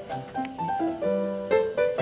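Background piano music: a melody of separate notes, several a second.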